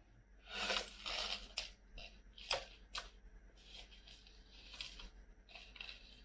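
A Samyang Buldak hot chicken ramen big-bowl cup being handled and turned over, its paper cup and lid crinkling in a string of short rustles with a few sharp taps.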